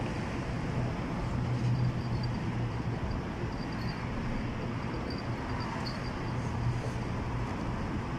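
Steady road traffic rumble with a low, even hum, with faint high chirps now and then.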